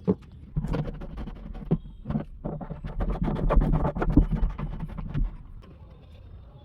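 Irregular clicks, knocks and scraping from plastic plumbing fittings being handled and fitted by hand, busiest in the middle and thinning out near the end.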